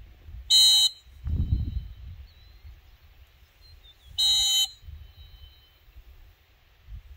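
Two short, loud electronic beeps about three and a half seconds apart, over wind rumbling on the microphone.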